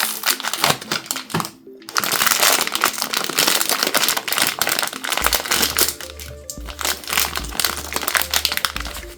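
Plastic blind-box packaging crinkling as it is torn open and handled, densest from about two seconds in to just past halfway, over background music whose bass line comes in about halfway through.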